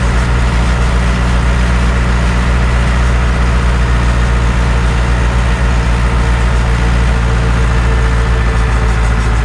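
Deutz-Fahr DX 3.60 tractor's air-cooled four-cylinder Deutz diesel engine running at a steady speed.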